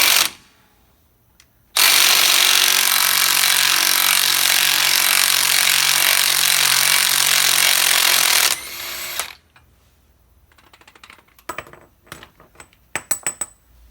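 Impact wrench hammering on an axle nut to break it loose: a short blip, then a long steady run of about seven seconds that winds down on release. A few metallic clicks and rattles follow near the end as the nut comes off.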